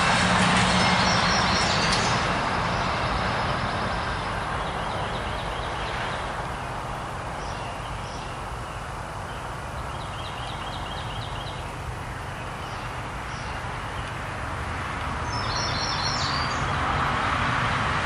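Distant engine noise of passing traffic: loud at first, fading through the middle and swelling again near the end. A small bird gives short, rapid series of high chirps about a second in, near the middle and again toward the end.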